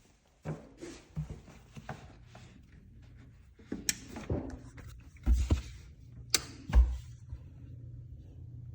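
A run of knocks and clicks, two of them with a deep thump, then a steady low hum.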